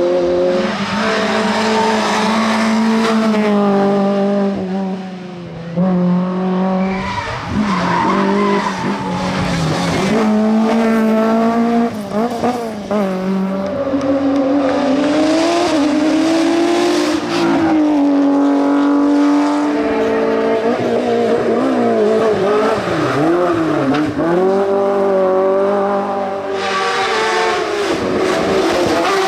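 Hillclimb race car engines revving hard. The pitch rises and drops over and over with gear changes and lifts for corners.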